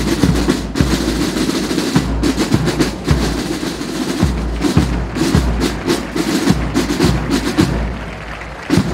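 Marching drums: deep bass-drum beats under snare-drum rolls, playing a parade cadence. The drumming eases off briefly near the end.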